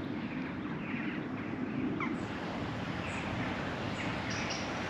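Birds chirping now and then, a few short calls over a steady low background hum of the outdoors.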